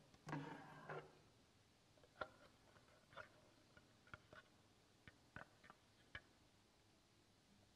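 Quiet handling of story materials at a wooden lectern: a short rustle about half a second in, then scattered light clicks and taps as a thin wooden board is lifted and handled.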